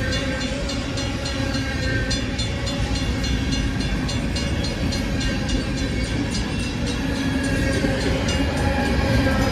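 Freight cars of a long manifest train rolling past at speed: steel wheels clicking over rail joints in a quick, even rhythm over a steady rumble, with a faint steady ringing tone underneath.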